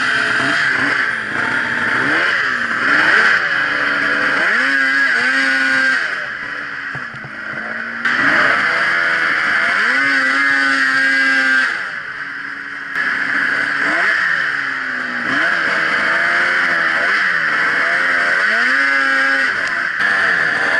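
Snowmobile engine running under the rider, its pitch rising and falling over and over as the throttle is opened and eased, with two short drops in level about six and twelve seconds in.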